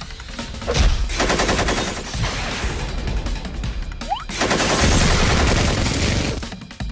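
Machine-gun fire sound effects in rapid rattling bursts, with a louder, noisier blast from about four and a half seconds in, over background music.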